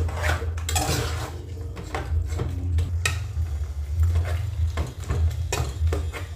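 Metal spoon scraping and clinking against the inside of a metal cooking pot while chicken stew is stirred, in a run of short irregular knocks. A steady low hum lies underneath.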